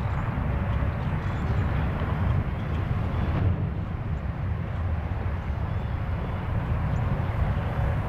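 Steady low outdoor rumble of distant traffic; the siren is not sounding.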